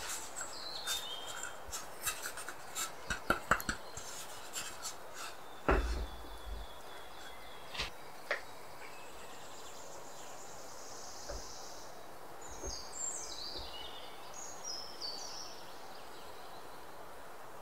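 Metal muffin tin knocking and clinking as it is handled and set down on a wooden cutting board, with a run of light taps and one heavy knock about six seconds in.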